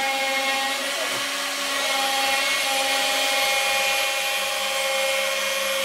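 CNC router spindle running a facing cut across glued-up pine stock: a steady whine of several held tones over the hiss of the cutter in the wood.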